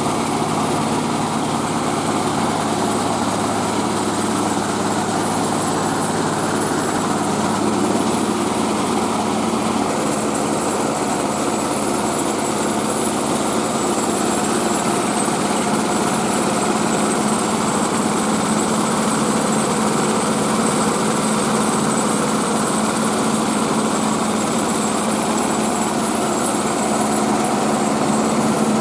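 Mobile rice-milling machine running steadily, its engine and milling mechanism making a continuous loud mechanical din. A low hum underneath stops about ten seconds in.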